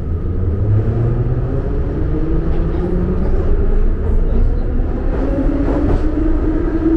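Metro train running through the tunnel, heard from inside the passenger car: a loud, steady rumble, with a motor whine that slowly rises in pitch over the last few seconds.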